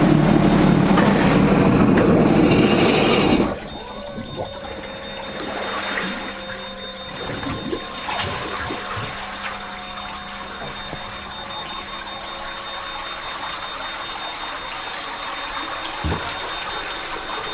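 Sea-Doo Spark jet ski's three-cylinder four-stroke engine running steadily, then shut off abruptly about three and a half seconds in. Water then sloshes and trickles around the hull, with a faint steady hum underneath.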